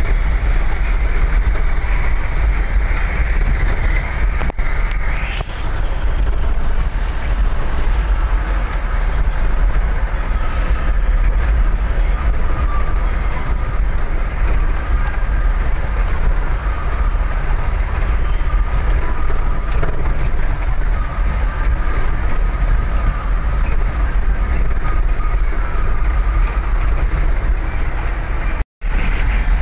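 Dump truck's diesel engine running steadily, a loud low rumble with road noise, heard from the cab. The sound drops out for a moment near the end.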